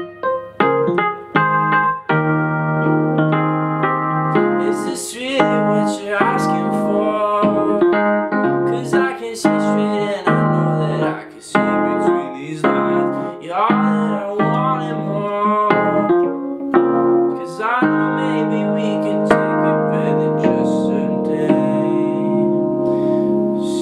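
Keyboard with a piano sound, played with both hands: struck notes and chords early on, fuller sustained chords in the middle, and a long held chord fading near the end.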